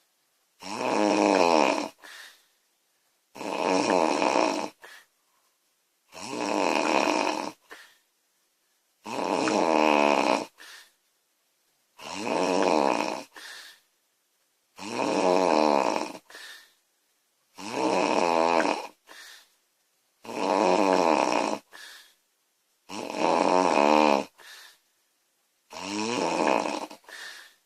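A woman snoring loudly, about ten snores at an even pace of roughly one every three seconds. Each long snore is followed by a brief, quieter second sound.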